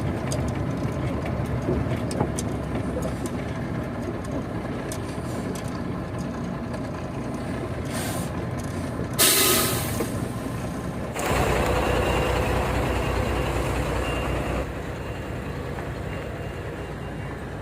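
Heavy truck's diesel engine running, with a loud burst of air-brake hiss about nine seconds in. The engine then grows louder for a few seconds and eases back near the end.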